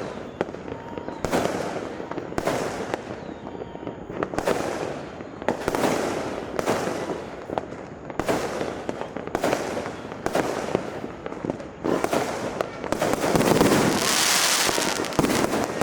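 New Year fireworks and firecrackers going off all around: sharp bangs about once a second, each trailing off in a rumbling echo, building near the end into a denser, louder volley of crackling bangs.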